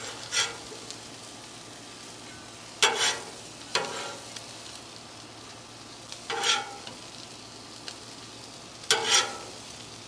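Consommé-soaked corn tortillas sizzling steadily on the steel of a flat-top griddle. A metal spatula scrapes across the steel five times in short strokes, each with a faint metallic ring.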